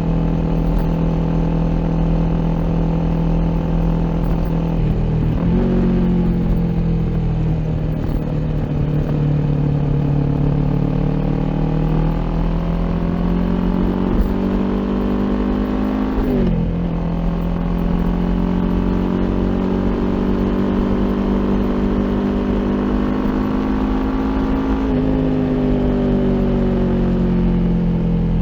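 Kawasaki Ninja 400 parallel-twin engine through an Akrapovic aftermarket exhaust, under way. Revs climb steadily and drop sharply at gear shifts about five and sixteen seconds in, then fall away near the end.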